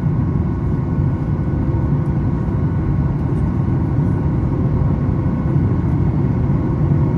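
Steady in-cabin noise of a Boeing 737 MAX 8 in flight: CFM LEAP-1B engine and airflow noise, mostly a low rumble, with a few faint steady tones above it.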